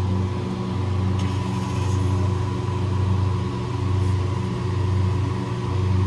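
Steady low machinery hum with a buzzy edge, unchanging throughout, with a faint brief rustle about a second in.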